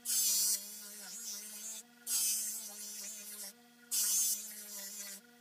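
Electric polishing wheel motor humming steadily, with a loud hiss about every two seconds, each lasting about half a second, as a steel hammer head is pressed into the compound-loaded buffing wheel.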